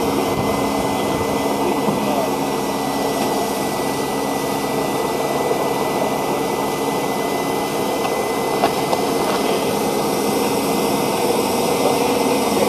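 Steam locomotive standing at the platform, a steady hiss of escaping steam with a low hum beneath it.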